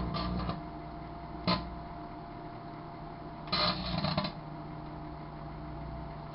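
Sharp Carousel microwave oven running with a steady hum while foil-wrapped condoms inside arc and spark, giving short buzzing crackles: a burst near the start, one sharp crack about a second and a half in, a longer burst a little past halfway, and another at the end.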